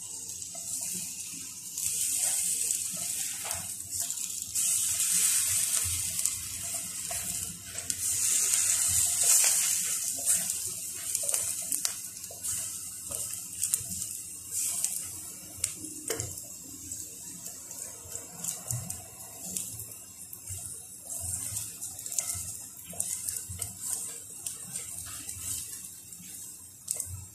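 Masala-coated eggplant slices sizzling in oil in a frying pan: a steady hiss that swells louder and eases off, with light clicks and scrapes of a spatula turning the slices.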